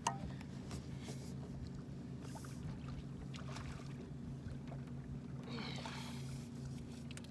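A fishing boat's steady low motor hum, with a few light knocks as a long-handled landing net is picked up and handled.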